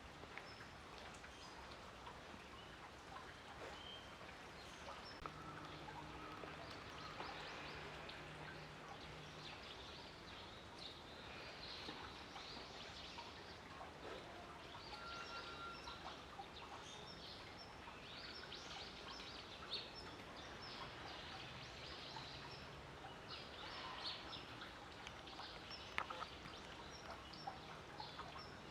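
Faint outdoor background noise with scattered short, high chirps and a few small clicks.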